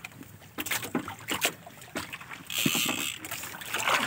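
Water splashing and sloshing against the hull and outrigger of a small boat, with scattered clicks and knocks and a short rush of splashing about two and a half seconds in.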